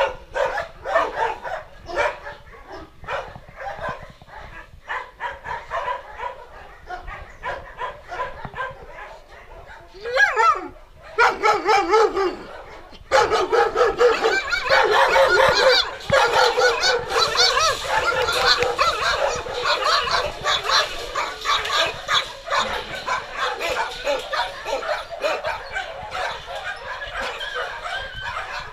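Many kennelled shelter dogs barking and yipping over one another. The barking grows louder and denser about halfway through.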